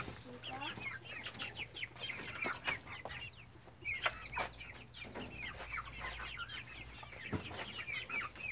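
Backyard chickens calling: many short, high chirps in quick succession.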